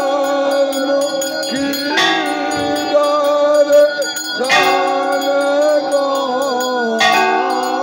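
Hindu temple aarti: devotional singing over sustained music with ringing bells, and three heavy strikes about two and a half seconds apart.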